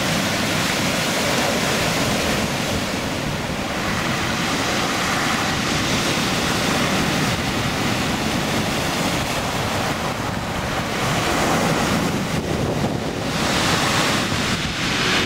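Waves breaking and surging on a beach in a rough sea, the wash swelling and easing several times, with wind rushing over the microphone.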